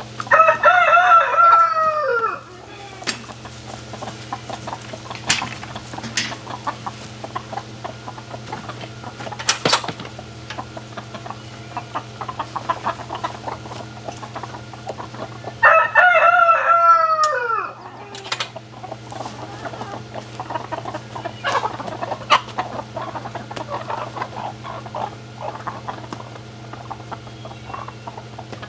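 A rooster crowing twice, about fifteen seconds apart; each crow lasts about two seconds and drops in pitch at its end. Between the crows the flock clucks, and a few sharp light knocks are heard.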